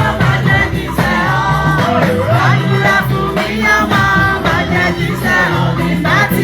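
Church praise music: voices singing over a steady beat and bass line.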